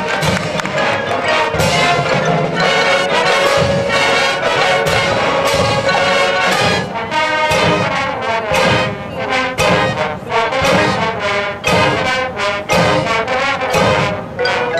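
Marching band playing a field show, heard from the bleachers: brass chords over frequent drum and percussion hits.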